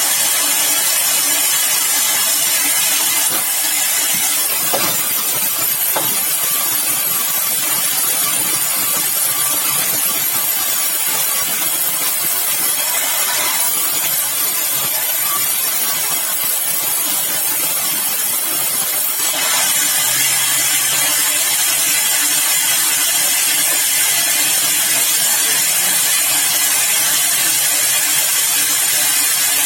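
Sawmill machinery running while yellow balau (bengkirai) hardwood is sawn: a steady, loud rushing noise. It turns brighter about three seconds in and a little louder again near the twenty-second mark.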